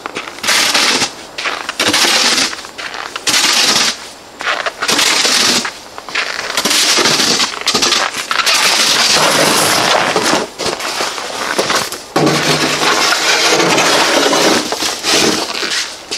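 Snow shovel scraping across hard-packed snow on pavement in repeated strokes, each a second or two long with short breaks between.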